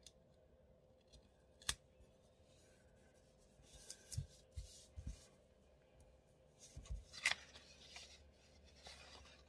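Faint handling of disc-bound planner pages: a sharp tap a little under two seconds in, then paper rustling and sliding with soft bumps on the table around the middle and again later as a page is lifted and moved.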